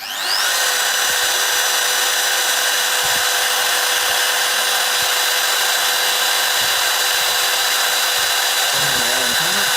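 Electric power tool switched on, its motor whining up to full speed within half a second, then running steadily at a constant high pitch.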